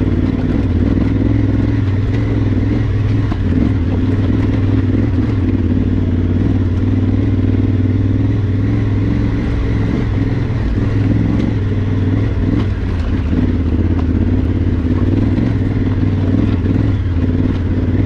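Adventure motorcycle engine running at steady, low revs while the bike is ridden slowly up a rough, rocky dirt trail.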